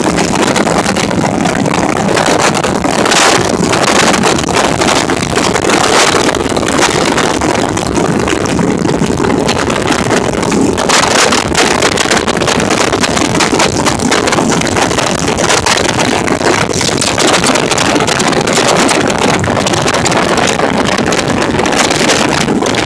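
Heavy wind rushing over the microphone of a cruiser motorcycle at highway speed, in uneven gusts, with the motorcycle's engine running underneath.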